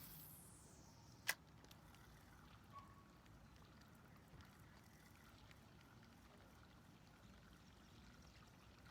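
Near silence with a faint steady background and one sharp click a little over a second in.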